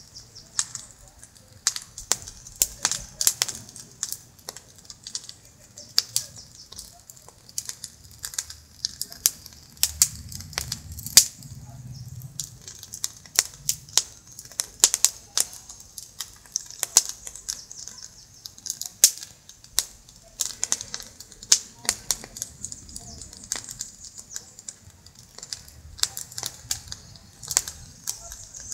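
Open wood fire of dry branches and logs crackling, with irregular sharp pops and snaps over a steady hiss.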